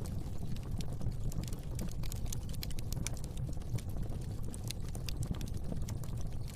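Fire in a fireplace crackling: irregular sharp pops and snaps over a low, steady rumble of the flames.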